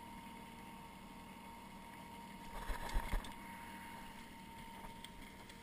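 Fishing lure, pliers and landing net being handled in a boat, with a short run of knocks and rustles a little past the middle, over a steady background hum.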